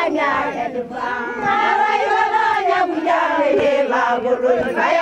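A group of Turkana women singing a traditional chant-like song together, many voices overlapping.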